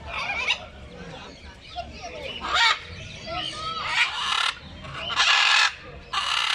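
Umbrella cockatoos giving harsh, raspy screeches, about five of them, each up to half a second long, with quieter bird chatter between.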